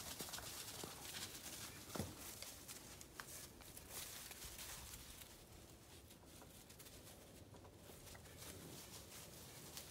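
Faint rustling and light crackling of dry fallen leaves as puppies move and tussle through them, with one short knock about two seconds in.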